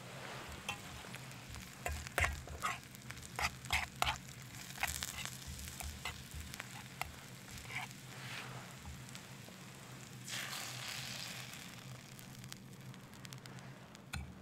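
Sliced onions sizzling in a hot frying pan over a campfire, with a run of sharp taps on the pan about two to four seconds in. About ten seconds in, the hiss swells as beaten egg goes into the hot pan.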